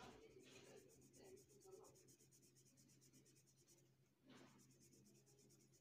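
Faint scratching of a felt-tip marker colouring in on paper in short back-and-forth strokes, the firmest stroke a little after four seconds in.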